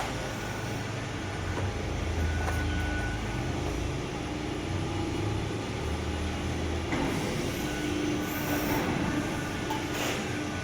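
Hydraulic CNC press brake with two cylinders running: steady machine noise with a low pump hum and a steady tone that come and go in stretches of a second or two as the machine works.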